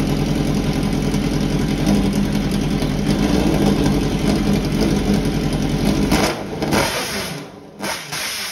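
Suzuki GSX-R1000 inline-four motorcycle engine, on its first start-up in a lawn mower chassis, running steadily. It stops about six seconds in, followed by a short rushing noise.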